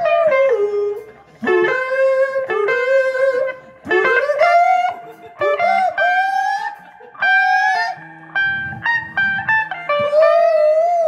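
Lone electric guitar playing short lead phrases of sustained notes that bend and slide in pitch, with brief pauses between the phrases.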